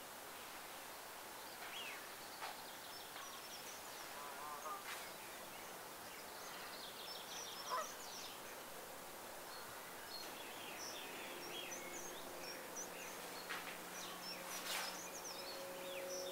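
Assorted birds calling and singing faintly in short high chirps, with a few lower calls. About eleven seconds in, a steady low hum with a couple of even tones joins them.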